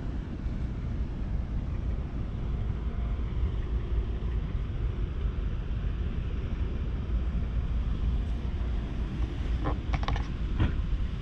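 Steady wind rumble buffeting the microphone, with a few short clicks about ten seconds in.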